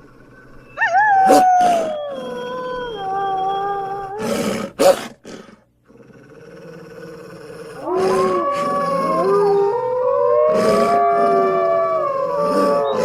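Wolf howls used as a dire wolf sound effect. A single howl starts about a second in and falls in pitch, followed by a few short sharp noises and a brief gap. From about two-thirds of the way through, several wolves howl together at different pitches.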